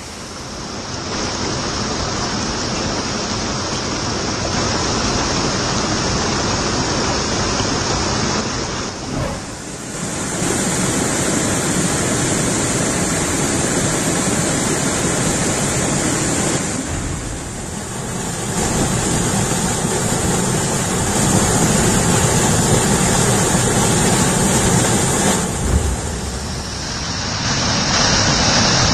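Water pouring over a small dam weir and rushing down over rocks as white water: a loud, steady rush. It dips briefly three times where the shots change.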